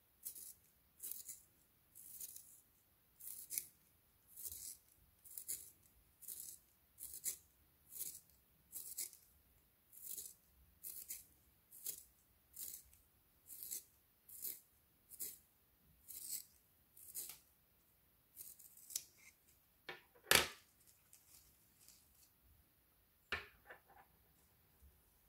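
A red wooden pencil turned in a small blue plastic hand-held sharpener, the blade shaving the wood in crisp scraping strokes at a steady rhythm of about two a second. About three quarters of the way through the strokes stop, followed by a single sharp knock, the loudest sound, and a softer clatter a few seconds later.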